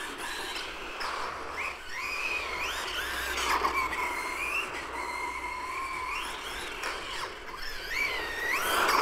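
Whine of the XLF F11A 1/10 RC car's brushless electric motor and drivetrain as the car is driven, the pitch rising and falling with the throttle and holding level for a few seconds in the middle.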